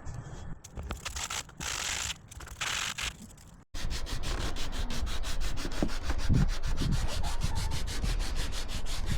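Teak being hand-sanded with sandpaper wrapped around a block of polystyrene foam: a few separate rasping strokes, then after a sudden short break, fast, even back-and-forth scrubbing.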